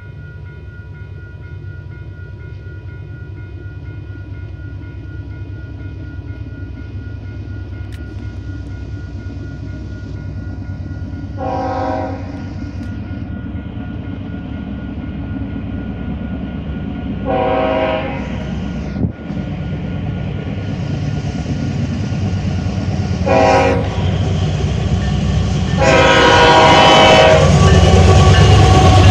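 CP diesel freight locomotive approaching a level crossing, sounding its horn in the long-long-short-long crossing signal, with its engine and wheel rumble growing louder until it reaches the crossing at the end. A crossing-signal bell rings underneath, plainest in the first half.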